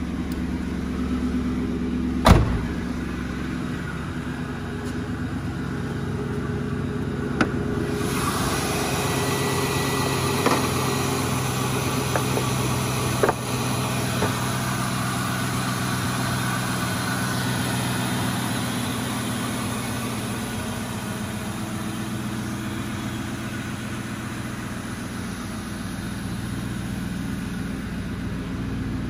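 2003 Ford Mustang's engine idling steadily. There is a loud thump about two seconds in and a few lighter clicks later, and from about eight seconds in a steady hiss joins the engine sound.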